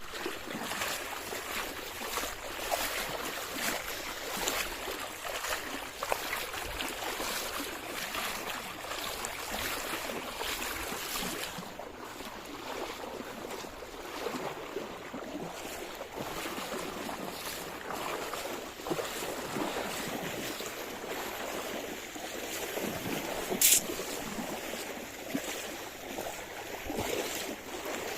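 River water flowing, a steady rush of moving water. A single sharp click stands out about three-quarters of the way through.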